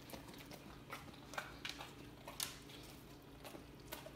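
Weimaraner licking and smacking its lips on a sour candy: a scattering of faint, short wet clicks several times across a few seconds.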